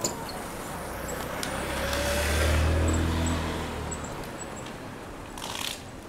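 A motor vehicle passing close by: its low engine hum swells to loudest about two and a half seconds in, then fades away.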